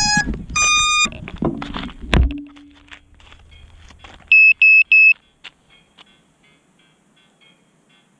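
Electronic beeps from an action camera as it is handled and set down on asphalt. It starts with two chirps of several tones and a couple of knocks from the handling, then three short, identical high beeps in quick succession about four seconds in, with faint ticks fading away after them.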